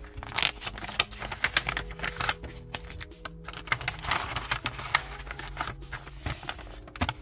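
Hands handling a card-covered paper pad: a run of light taps, clicks and paper rustles as it is gripped, turned over and shifted.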